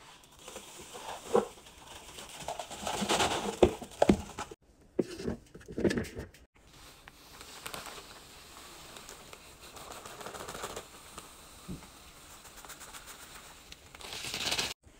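Powdered laundry detergent pouring into an empty stainless steel washer drum, hissing and pattering onto the metal. The first half is busier, with crinkling and sharp clicks; the hiss grows louder near the end.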